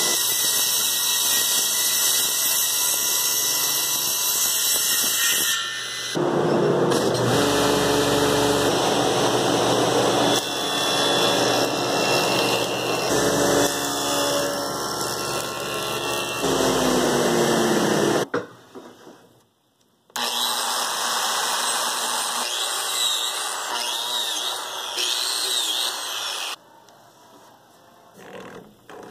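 Table saw running and cutting wood in several separate cuts, ripping boards and cutting a rabbet, with a falling whine partway through. Near the end there are only quieter handling sounds.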